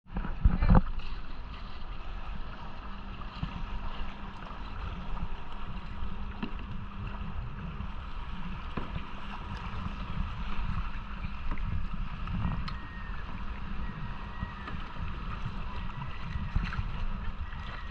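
Sea water splashing and sloshing around a kayak being paddled, with wind rumbling on the microphone. A loud knock comes less than a second in.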